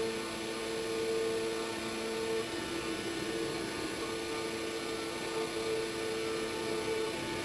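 CNC router running steadily while surfacing the spoil board: a constant spindle whine over a wide hiss, with a second, higher tone that drops out and comes back every second or so.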